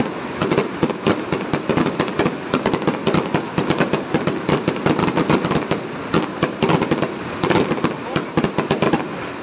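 Aerial fireworks display: a dense, unbroken barrage of shell bursts and crackling reports, several bangs a second throughout.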